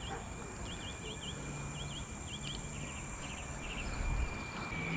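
Outdoor dawn ambience: a steady high insect trill with a bird's short chirps repeating in pairs, then a few quick stuttered notes.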